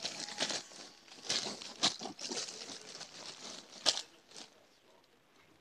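Clear plastic bag crinkling and rustling as a cat pushes its head around inside it, in irregular bursts with two sharper crackles, dying away about four and a half seconds in.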